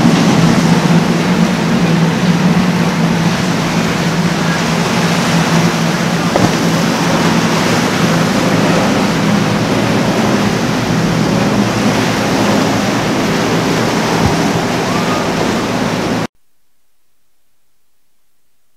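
A center-console boat's four outboard motors running at speed through rough water, a steady low drone that slowly fades as the boat pulls away, mixed with the rush of surf and wind. The sound cuts off abruptly about sixteen seconds in, leaving only a faint hiss.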